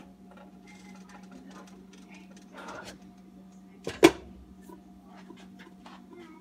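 Glass pan lid set down on a skillet of sauce with one sharp clink about four seconds in, over a steady low hum.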